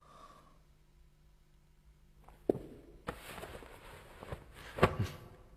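Quiet at first, then about two and a half seconds in a click followed by rustling of bedding and a couple of soft thumps, as a pillow is thrown back and caught.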